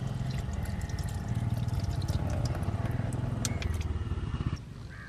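Small USB-rechargeable electric water-dispenser pump humming as water runs from its spout over hands into a plastic basin, with splashing and drips. The hum cuts off a little after four seconds in.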